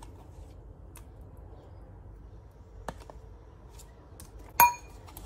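Metal spoon scooping Greek yogurt from a tub, with a few faint clicks, then near the end one sharp clink that rings briefly as the spoon knocks against the ceramic bowl.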